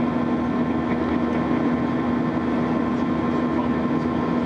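Steady cabin noise of an Airbus A320 climbing after takeoff, heard from inside the cabin: the jet engines' even drone with a constant low hum and a fainter higher whine over a rush of air.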